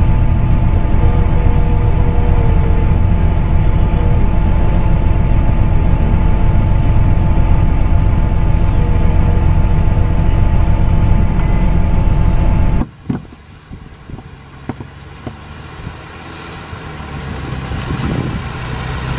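John Deere combine harvester's engine running steadily and loudly while the machine churns in mud. About two-thirds of the way through it cuts to a much quieter vehicle engine with a few knocks, which grows louder toward the end.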